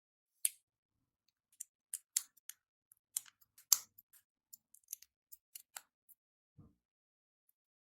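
Lego Technic plastic pieces being handled and pressed together, a run of sharp, irregular clicks, with one soft low thump near the end.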